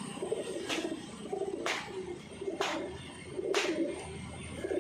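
Domestic flying pigeons cooing with low, warbling calls. Sharp clicks come about once a second.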